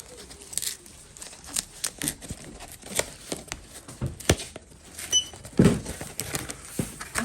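Plastic parcel packaging being handled, rustling and crinkling with irregular clicks and knocks. A short electronic beep sounds about five seconds in.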